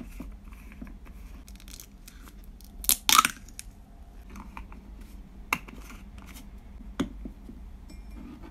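Plastic screw cap being twisted off a syrup bottle, with a short loud crinkly tear about three seconds in as the seal under the cap is pulled off, then two sharp plastic clicks as the flip-top cap is handled and put back on.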